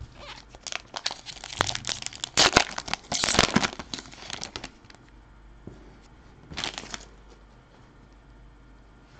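Foil wrapper of a 2017-18 Upper Deck Artifacts hockey card pack being torn open and crinkled by hand, loudest between about one and five seconds in, with a shorter crinkle near seven seconds.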